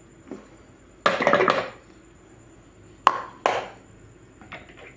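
Kitchen utensils being handled: a short rattling scrape about a second in, then two sharp knocks half a second apart around three seconds in, and a few light taps near the end, as parts and food are pulled out of a food chopper.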